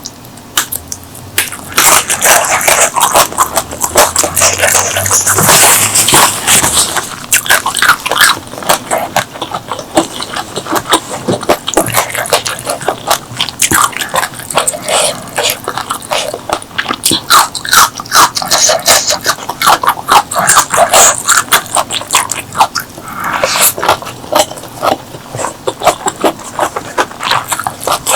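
Close-miked eating sounds: continuous wet chewing and mouth smacking as a steady stream of quick clicks.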